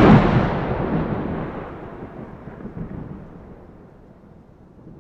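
A clap of thunder, loudest at the very start, rolling on into a low rumble that fades away over several seconds.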